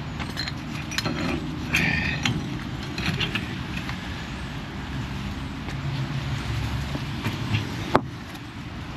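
Metal clanks and knocks of fuel-delivery hose fittings being moved between tanks, with a squeak about two seconds in and a sharp click near the end, over a low steady hum.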